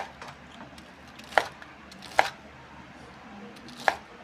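Kitchen knife cutting through a crispy fried breaded pork cutlet (tonkatsu). There are four sharp chops at uneven intervals, each a click of the blade going through the crust onto the cutting surface.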